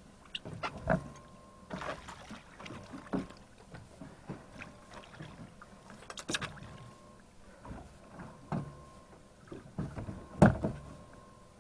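Splashing and knocking as a dusky grouper is gaffed at the surface and hauled up against the side of a fishing boat, with a sharp thump near the end.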